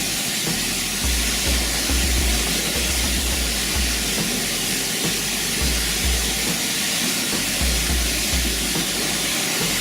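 Steady rushing of waterfall water, with the deep bass notes of background music underneath.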